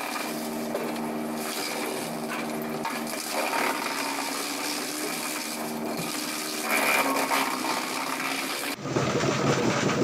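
Drum wood chipper running with a steady machine hum while logs and roots are fed into it and crunched into chips, with louder cracking spells about three and a half and seven seconds in. Near the end the sound switches abruptly to a louder, deeper run of the chipper.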